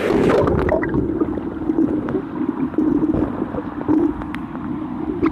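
Muffled underwater rushing and gurgling heard through a waterproof phone's microphone as it goes under the river water, with scattered small clicks. The high, airy part of the sound drops away about a second in.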